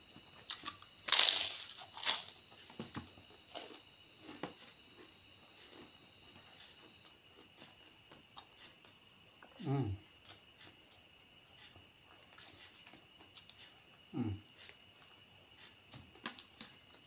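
A person eating crunchy food: a loud crunchy bite about a second in and another a second later, then quieter clicks of chewing, with two short low falling 'mm' hums later on. Crickets chirp steadily in the background.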